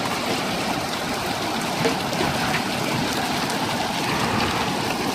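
Heavy rain mixed with hail falling steadily: a dense, even hiss of water with faint scattered ticks of hailstones striking.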